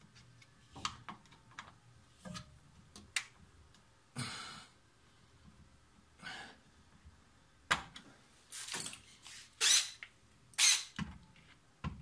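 Scattered clicks, taps and short scraping sounds of screws being worked out of a washing machine's plastic drain pump housing, with a cluster of louder scrapes near the end.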